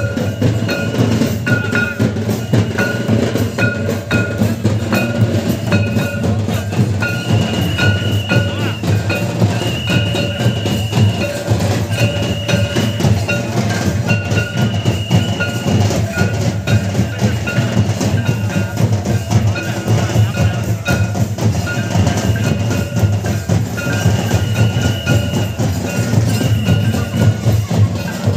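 Santali folk dance drumming: two-headed barrel drums beaten in a steady, dense rhythm, with a high, repeating melodic phrase of short and held notes over the beat.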